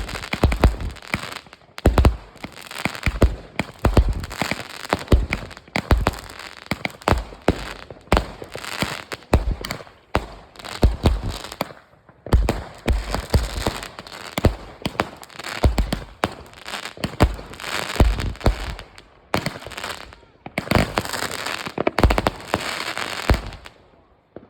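Fireworks going off in a dense, irregular barrage: sharp bangs and deep booms over continuous crackling, with a brief lull about halfway through and dying away near the end.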